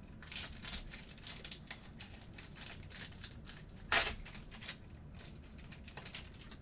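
Crinkling and tearing of a trading-card pack's foil wrapper being opened by hand, a run of crackly rustles with one sharp, louder rip about four seconds in.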